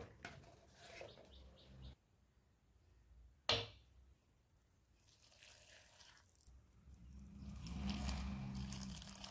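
Chopped bottle gourd pieces tumbling off a wooden board into a clay pot with light clicks, then a single sharp tap about three and a half seconds in. Near the end, water is poured from a small clay cup onto the gourd in the clay pot, a soft splashing pour that swells and fades.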